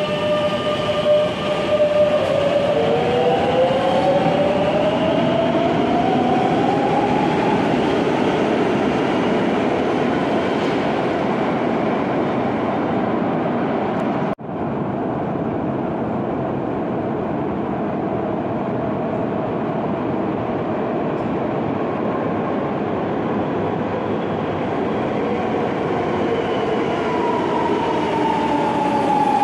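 Madrid Metro 9000-series electric trains: one pulling out with its motor whine rising in pitch over the first several seconds, then, after a brief dropout about halfway, a steady rumble from the tunnel as a second train approaches and its whine falls in pitch as it brakes into the station near the end.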